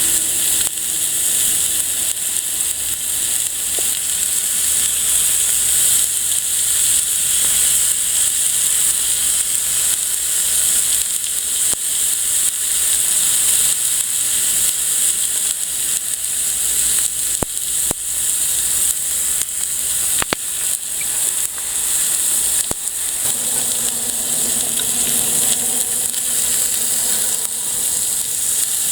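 Food sizzling in a hot pan: a steady, high hiss with a few sharp pops and spits around the middle.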